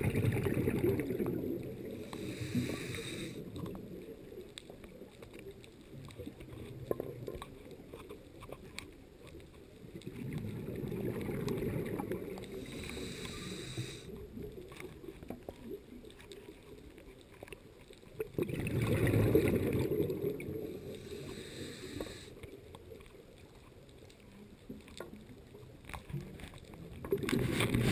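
A scuba diver breathing underwater through a regulator. There are four bursts of exhaled bubbles, roughly nine seconds apart, and most are followed by the short hiss of an inhaled breath through the regulator.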